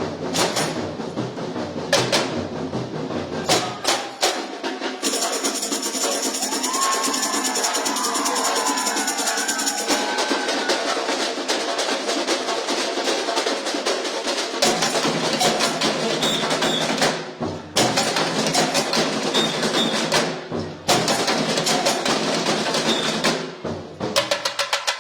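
Samba bateria, a drum corps of bass drums, snares and smaller hand percussion, playing a driving samba rhythm. The deep bass drums drop out for about ten seconds, leaving only the higher drums and shakers, then the full ensemble comes back in. Near the end the whole group cuts off in short breaks three times.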